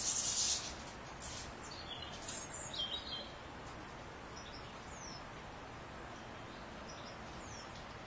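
European goldfinch calling: a cluster of sharp high calls in the first three seconds, the first the loudest, then a couple of faint short falling notes, over steady background noise.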